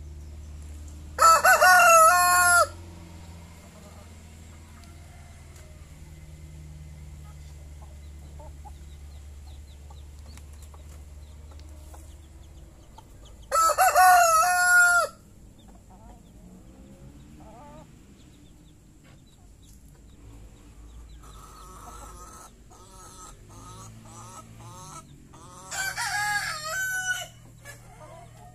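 Rooster crowing three times, about twelve seconds apart, each crow about a second and a half long; the last crow is quieter. Chickens clucking in short repeated calls just before the last crow.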